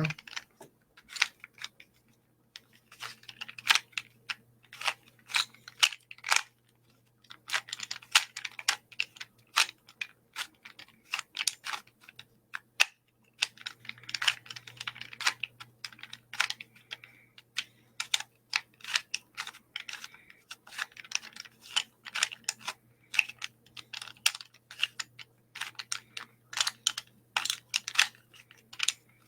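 Plastic 3x3 Rubik's Cube being scrambled: quick irregular runs of clicks and rattles as its layers are turned.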